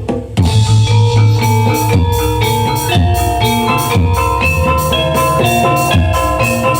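Reog gamelan accompaniment playing: drums beating about once a second under ringing, sustained metallic pitched percussion such as bronze gongs and gong-chimes, with quick strokes on top.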